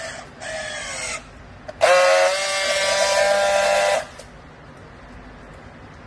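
Battery-powered handheld strapping tool's motor whining in two bursts as it works a plastic strap round a bale: a short one whose pitch falls as the strap draws tight, then a louder steady buzz of about two seconds as it seals the strap.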